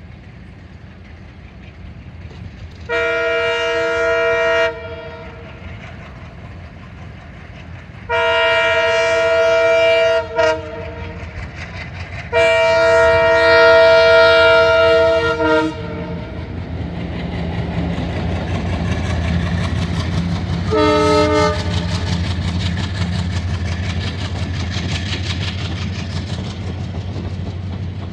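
Express passenger train's locomotive horn sounding three long blasts, then a short one about two-thirds through, as a warning on the approach to the level crossing. A low rumble and clickety-clack swell in the second half as the blue passenger coaches run past.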